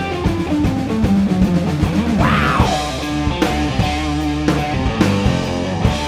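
Blues-rock power trio playing an instrumental passage on electric guitar, bass guitar and drum kit, with a note that swoops up and back down about two seconds in.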